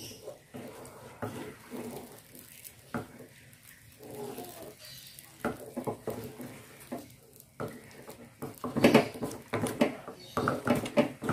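A utensil scraping and knocking against an aluminium bowl as thick, sticky tapioca dough is stirred over the heat. The strokes are scattered at first and come thicker and louder for the last few seconds, as the dough stiffens and takes hard work to stir.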